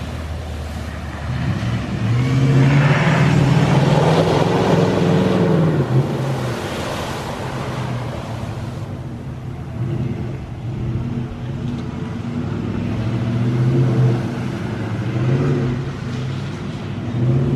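Pickup truck engine revving as it drives through floodwater, rising and falling in pitch, loudest a few seconds in and again near the end.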